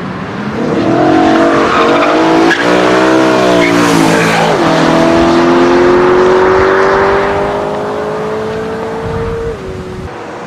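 A performance car's engine and exhaust under hard acceleration. The revs climb and drop sharply at gear changes about two and a half and four and a half seconds in. A long pull in a higher gear follows, and there is another upshift near the end, the sound fading as the car draws away.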